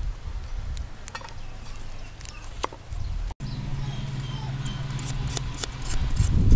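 Knife blade cutting and chopping through a fresh root on a wooden chopping board: a run of quick, sharp cuts in the second half, getting louder near the end.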